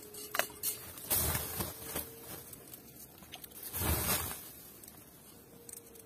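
Hand-flung water splashing into a hot clay tandoor with short rushing hisses, three times: a brief one, then two longer ones about a second in and near four seconds in.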